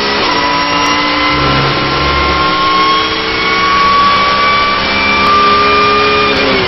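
Porsche 911 GT3 Cup race car's flat-six engine at full throttle, heard from inside the cockpit: an upshift just at the start, then the engine pitch climbing steadily as the car gathers speed on the straight. Right at the end the pitch drops sharply as the driver lifts off for the braking zone.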